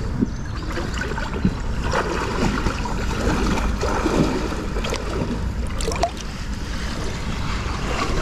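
Shallow river water running and rippling over stones, with wind rumbling on the microphone and a few brief splashes as a brown trout is held in the current for release.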